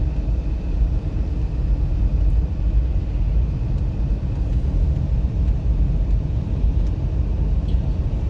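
Kia Sorento XM driving, heard from inside the cabin: steady low road rumble with the suspension's unpleasant grinding noise from the front stabilizer bar bushings, where a gap between the worn bar and the bushing lets it grind, worse in frosty weather.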